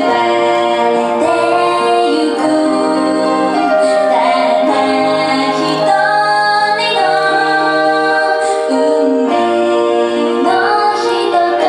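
A girl singing a Japanese pop song into a microphone over instrumental accompaniment, with long held notes.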